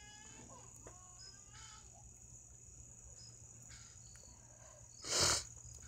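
Steady high-pitched chirring of night insects. About five seconds in there is one short, loud burst of noise close to the microphone.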